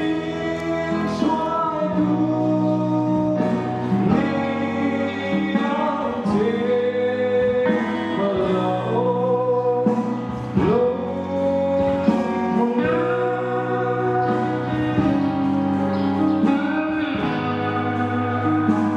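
A man singing a gospel song into a microphone, with long held and sliding notes, over instrumental accompaniment.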